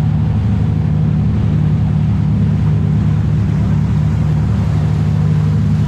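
Sport fishing boat's engines running steadily, a loud low drone.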